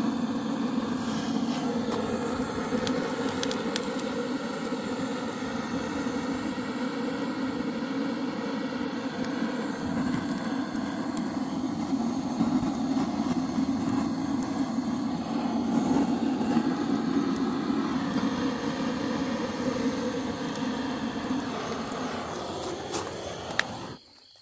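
Handheld butane canister gas torch running steadily, its flame blasting into charcoal to light it. The torch is shut off about a second before the end.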